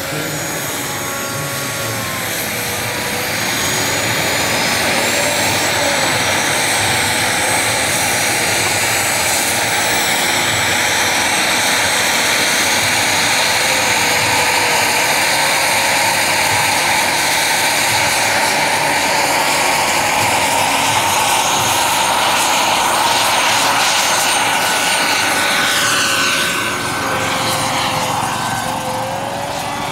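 Model gas turbine engine of a large radio-controlled Bell 206 JetRanger helicopter running with a steady high whine over the rotor noise, growing louder a few seconds in. Near the end the sound shifts as the model lifts off into a hover.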